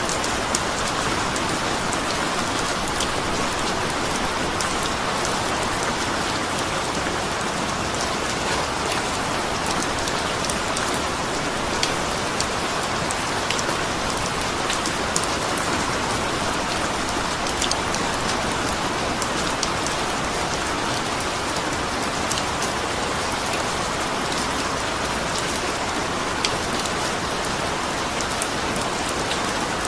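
Steady rain falling, a continuous even hiss with many small drop ticks scattered through it.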